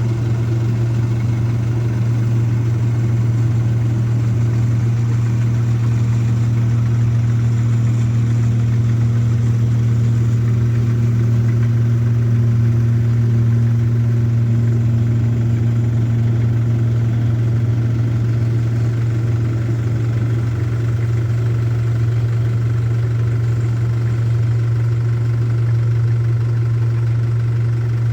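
Rice combine harvester's engine running steadily at constant speed, a loud, even low hum.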